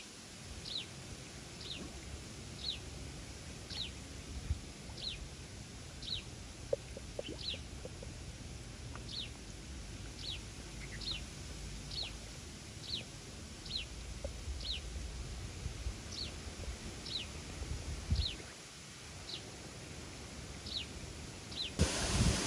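A bird calling over and over, one short falling note about once a second, over a steady low rumble. A louder hiss comes in near the end.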